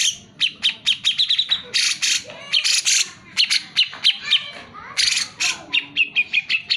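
Cucak jenggot (grey-cheeked bulbul) singing loudly and without a break. Harsh, raspy calls alternate with quick runs of short, clear chirps.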